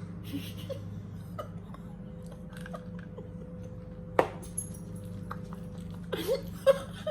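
Someone chewing a mouthful of chewy Lemonhead sour candies, with scattered small wet mouth clicks over a steady low hum. A single sharp knock about four seconds in, and a few short mouth sounds near the end.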